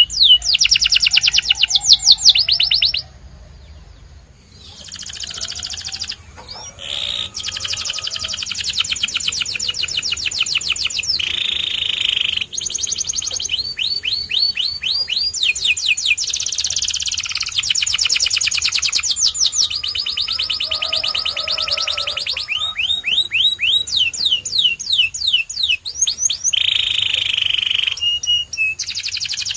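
Domestic canary singing: fast trills of rapidly repeated rising notes and rolls, in phrases that change every second or two, with a short pause a few seconds in.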